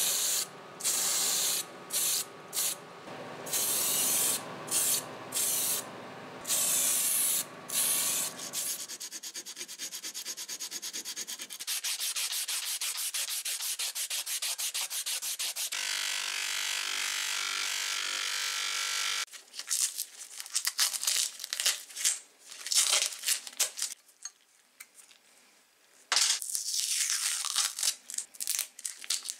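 Aerosol spray paint hissing in short on-off bursts over a low steady hum. Then a steady rubbing as sandpaper is worked by hand over the steel jaws of the tin snips. Near the end come irregular crackling scrapes as masking tape is peeled off and crumpled.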